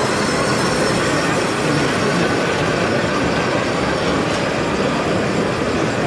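Radio-controlled model crawler bulldozer driving steadily, its tracks clattering with a faint steady whine from its drive motors.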